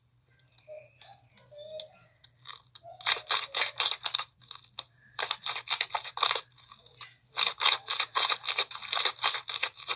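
Blue slime being pressed and kneaded by hand, giving runs of rapid crackling and popping clicks that start about three seconds in and come in three bursts.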